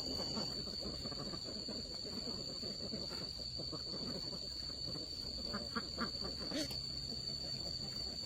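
Flock of domestic ducks quacking and chattering over a steady high-pitched whine, with one sharp click about six and a half seconds in.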